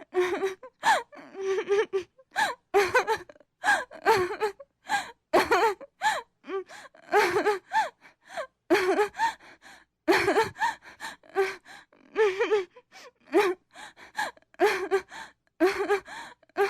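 A woman on the verge of tears, sobbing: short, repeated gasping breaths and whimpering sobs, one or two a second, with breathy sighs between them.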